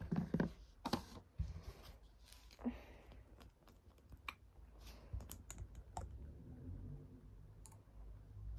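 Light, irregular clicks and taps from handling a small glass dropper bottle and its screw cap, with short rustles of hands moving.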